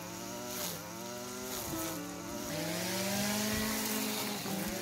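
Stihl FS 55 two-stroke string trimmer running at high revs while cutting tall grass and weeds. The engine note dips and rises again several times.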